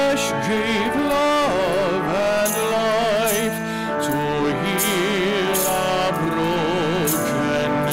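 Offertory hymn at Mass: a singer with a wide vibrato holds long notes over sustained instrumental accompaniment.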